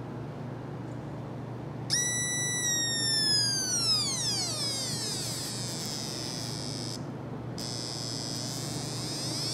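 Drawdio, an electronic noisemaker clipped to a paintbrush, sounding a whining electronic tone whose pitch follows the resistance of the wet paint between the brush and a finger. It starts suddenly about two seconds in, holds high, then glides steadily down as the painted stroke lengthens, leaving a thin high whine that drops out briefly and begins to rise again at the very end.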